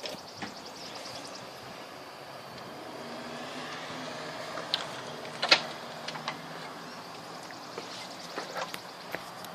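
Water from a hose running steadily through a homemade hydraulic ram pump and out of its delivery pipe, with the waste valve stuck shut. A few sharp knocks, the loudest about five and a half seconds in.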